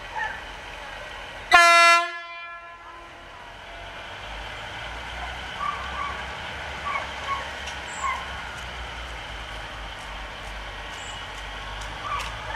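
A single short, loud horn toot from a diesel multiple unit about one and a half seconds in, then the low rumble of its diesel engine as the train starts moving.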